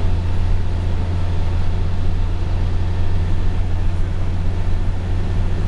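Inside the cabin of a New Flyer Invero city bus cruising at highway speed: a steady low engine drone with tyre and road noise over it.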